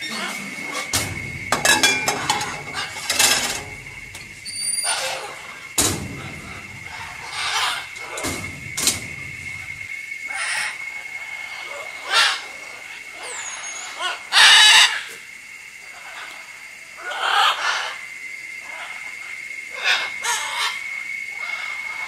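Captive macaws giving short, harsh squawks, about a dozen of them spread through, with the loudest about two-thirds of the way in. A steady high-pitched whine runs underneath.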